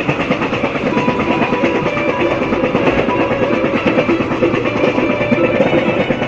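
Guitar music playing over the running noise of a moving passenger train.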